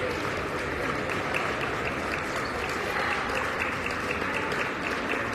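Applause from a small crowd of spectators and players, a steady patter of many hands clapping at once, with some voices mixed in.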